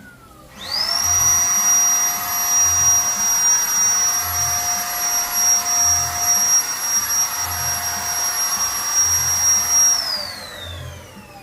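Electric paint spray gun's motor switched on, spinning up quickly and running steadily with a high whine and a rush of air for about nine seconds, then switched off and winding down with falling pitch.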